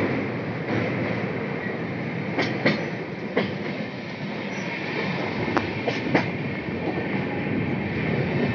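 Howrah–Yesvantpur Duronto Express passenger coach running, heard from its open doorway: a steady rumble and hiss of wheels on rail, with the wheels clacking over rail joints a few times, some clacks in quick pairs.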